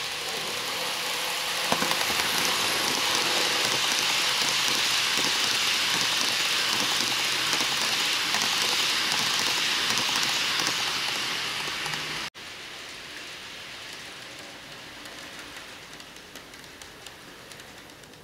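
N-scale model train, an EF66 electric locomotive pulling blue coaches, rolling past on model track: a steady rushing rattle of many small wheels over the rails, loudest as the train goes by. It cuts off suddenly about twelve seconds in, giving way to a fainter rolling rattle from the train further off that fades toward the end.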